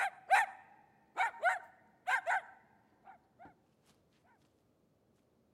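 Dog barking: three pairs of sharp barks in the first two and a half seconds, then a few fainter ones that die away.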